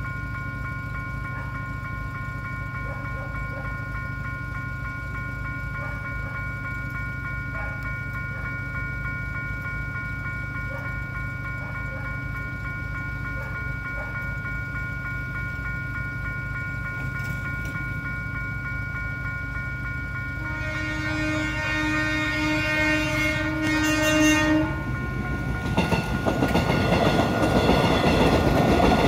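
A level crossing's electronic warning signal sounds a steady chime of several high tones over a low rumble. About 20 seconds in, an approaching electric multiple-unit commuter train blows its horn for about four seconds, then crosses with loud, rising wheel-and-rail noise and clickety-clack.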